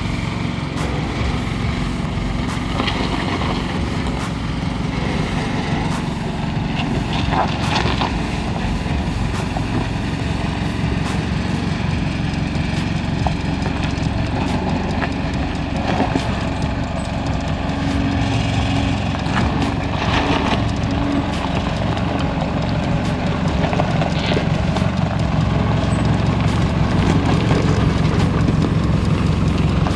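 Toyota Prado 4x4 crawling down a steep, rocky, uneven track: the engine runs steadily at low revs, with scattered knocks and crunches as the tyres and suspension work over the rocks. It gets slightly louder near the end.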